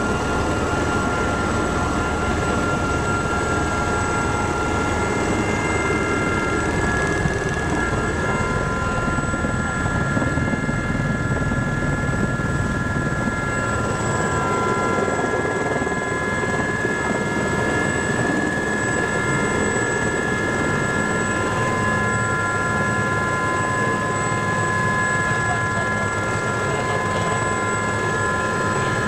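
Aérospatiale Gazelle helicopter's turboshaft engine and rotors heard from inside the cockpit as it lands: a steady rush with several steady high whining tones over it. Another whining tone joins about a third of the way through.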